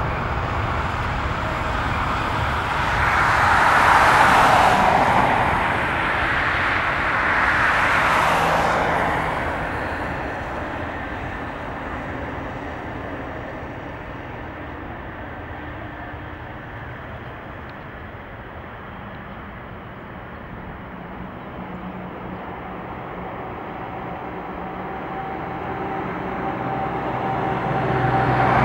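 Boeing 747-8 freighter's four GEnx turbofans at takeoff thrust, a broad jet roar that swells twice in quick succession as the aircraft rolls past on a wet runway, then fades as it lifts off and climbs away. The noise grows again near the end.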